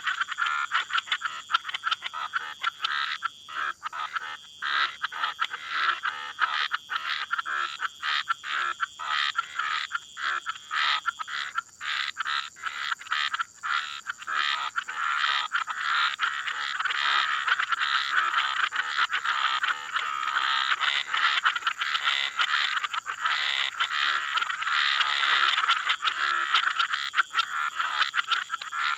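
A chorus of frogs and toads, many calling at once in rapid, overlapping pulsed croaks.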